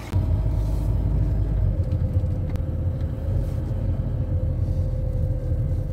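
Motorhome engine and road rumble heard from inside the cab while driving, a steady low rumble with one engine tone that drops slightly about two seconds in.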